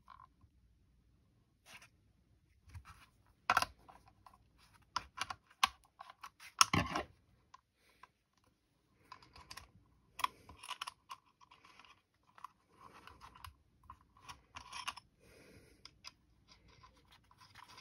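Irregular light clicks and knocks of metal rail parts and small screws being handled and fitted onto a spotting-scope rail system, with a couple of sharper knocks about 3.5 and 7 seconds in and denser small clicking and scraping in the second half.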